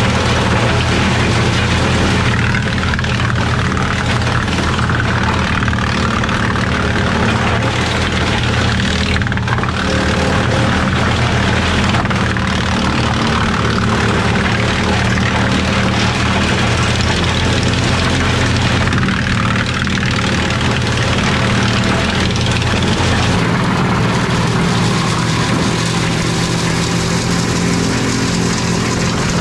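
A tractor-driven wood chipper running steadily: a loud, even engine drone under a broad mechanical rush. The engine note shifts about three-quarters of the way through.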